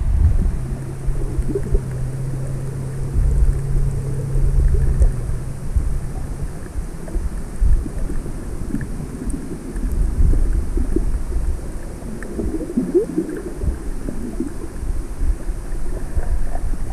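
Muffled underwater sound from a camera held under water while snorkelling: an uneven low rumble of moving water against the housing. A steady low hum runs through the first six seconds or so, then stops.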